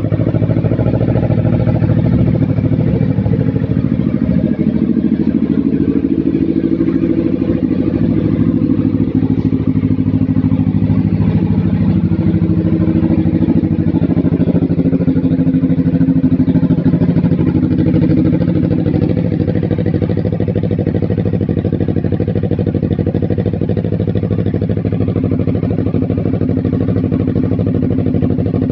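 Yamaha R3's parallel-twin engine idling steadily through a modified slip-on muffler.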